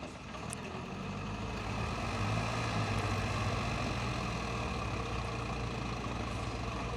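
Diesel engines of a Sonalika tractor and a JCB backhoe loader running hard under heavy load, a steady low drone that builds from about a second in and then holds. The two machines are straining together to pull and push a stuck, loaded trolley up a soft sandy slope.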